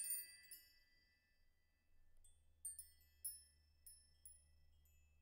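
Faint background music of sparse, high chime-like notes, a handful of single notes each ringing briefly and fading.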